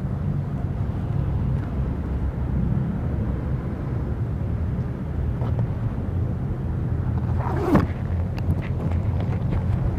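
Honda Click automatic scooter running on the road: a steady low engine rumble mixed with wind on the microphone. About three quarters of the way through, a brief falling whine passes.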